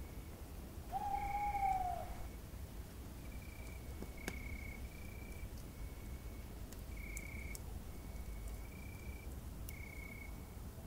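Night ambience of crickets chirping in short repeated bursts, with one owl hoot about a second in: a single held note that drops at its end and is the loudest sound. A single sharp crack of the campfire comes about four seconds in.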